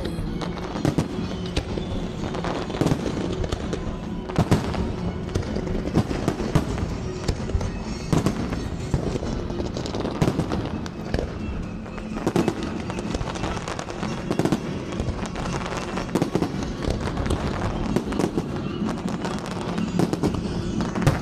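Aerial fireworks display: shells bursting in a rapid, irregular run of bangs and crackles that goes on without a break.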